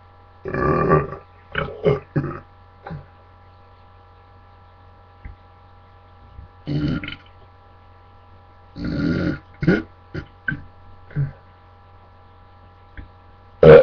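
A man belching deliberately: three longer belches, about half a second, seven and nine seconds in, with several short sounds between them and a short, very loud one at the very end. A steady low hum runs underneath.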